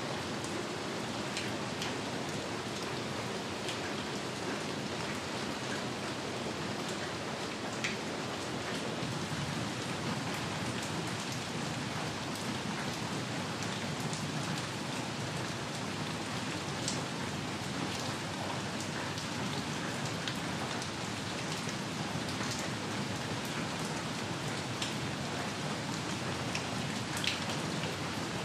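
Steady rain falling, an even hiss with scattered sharp drip ticks.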